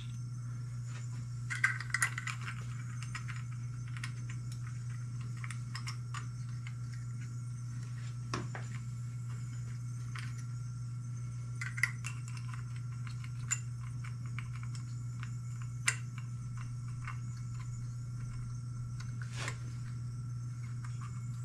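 Small metal parts of a golf-cart engine's drive clutch clinking and tapping as they are fitted by hand, a short cluster of clinks about two seconds in and then single clinks every few seconds. A steady low hum runs underneath.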